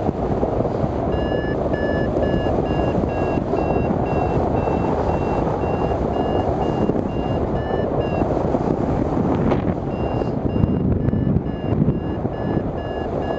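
Hang-gliding variometer beeping in quick short pips, about three a second, the audio signal of climbing in lift; the beeps stop for about two seconds past the middle, then start again. Wind rushes loudly over the microphone throughout.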